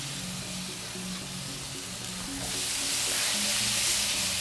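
Pork sizzling over hot oak lump charcoal in an open Weber Smokey Mountain smoker as it is basted with marinade; the hiss grows louder about halfway through. Soft background music with slow, held notes plays underneath.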